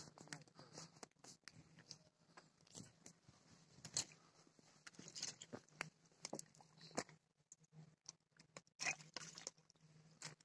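Faint, irregular crunches and clicks of work on river ice around a hole, with no steady rhythm.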